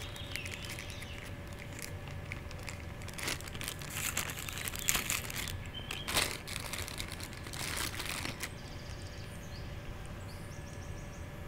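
Clear plastic packaging crinkling and rustling as it is handled, in irregular bursts that die away for the last few seconds.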